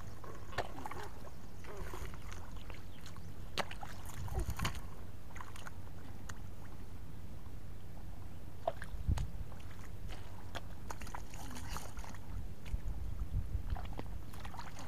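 Hands and bare feet sloshing and splashing in shallow muddy water, with scattered short, sharp splashes, over a steady low rumble.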